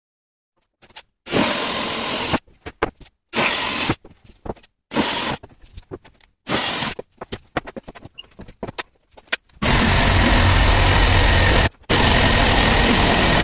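Short bursts of power-tool noise separated by pauses, then about a second before the end a handheld router starts running steadily, cutting into a board, with one brief break.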